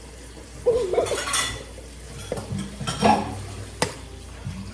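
Eggs being cracked into a mixing bowl, with clinks and scrapes of the bowl and utensils and a sharp click near the end.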